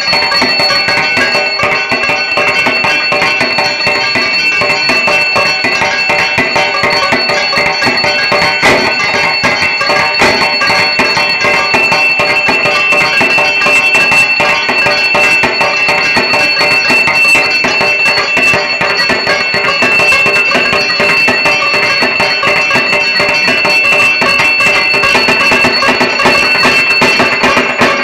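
Dhak, the Bengali barrel drum, played continuously in a dense, rapid rhythm of puja drumming, with a steady high ringing tone held above the drums throughout.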